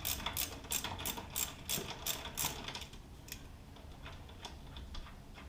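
Socket ratchet clicking in a steady rhythm, about three clicks a second, as a 12mm brake caliper bolt is turned loose. The clicking stops about halfway through, leaving a few faint ticks.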